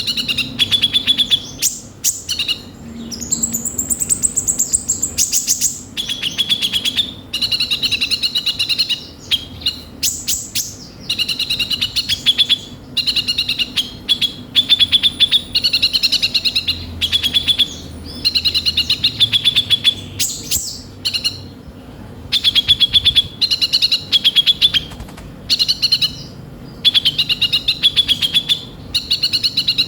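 Konin (kolibri ninja) sunbird singing: high, rapid trilled phrases of fast-repeated notes, one after another with short breaks, with thinner higher notes mixed in.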